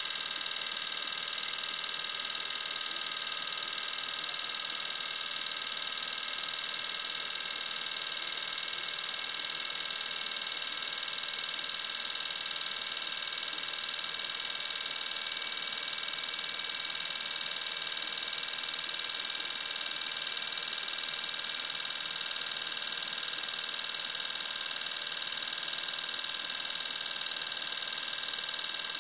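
A bench of four fuel injectors firing without pause, spraying fluid into graduated measuring cylinders during a flow test. It is a steady, even, high hiss with fast solenoid ticking that does not change.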